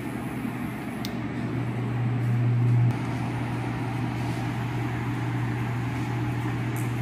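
Electric hair clipper buzzing with a steady low hum, louder from about one and a half seconds in until it drops suddenly near three seconds, then running on at a lower level.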